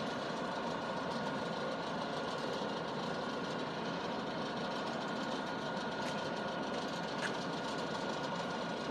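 Engine idling steadily under a faint continuous whine, with a couple of brief clicks about six and seven seconds in.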